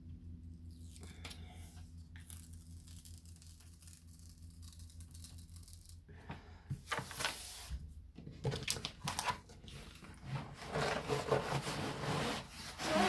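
A large diamond painting canvas with its plastic cover film being handled: irregular rustling and crinkling, faint at first and louder from about halfway, loudest near the end. A faint steady low hum runs underneath.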